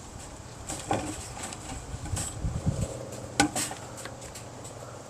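Metal cage trap rattling and clinking in scattered knocks, the sharpest about three and a half seconds in, as the trapped skunk shifts or the trap is handled.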